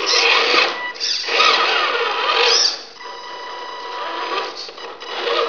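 Electric motor and gearbox of a Tamiya Ford F350 radio-controlled crawler truck whining as it is throttled over rubble, rising and falling in pitch. Louder for the first three seconds, then a quieter, steadier whine.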